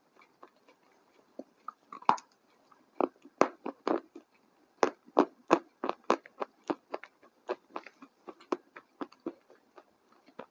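A person biting into and chewing crunchy food close to the microphone. A loud first crunch comes about two seconds in, then steady crunchy chewing at about two to three chews a second, softening near the end.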